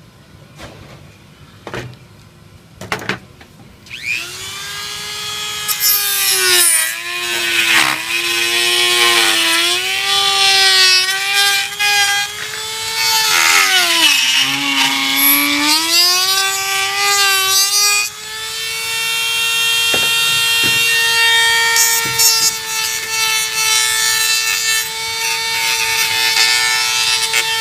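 Dremel rotary tool starting up about four seconds in and whining at high speed as its bit grinds away the rough edges of a cut hole. The pitch sags each time the bit bears down, then holds steady before the motor winds down at the very end. A few sharp clicks come before it starts.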